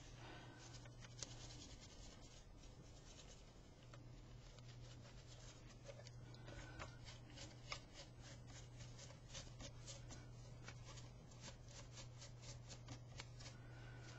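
Faint scuffing and rubbing of a terry-cloth rag wiping wet acrylic paint off a sculpted rose relief, a quick, uneven run of small scratchy strokes.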